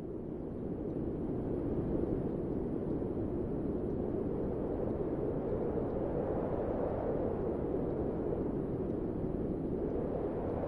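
Muddy floodwater rushing down a hillside: a steady, low rushing noise.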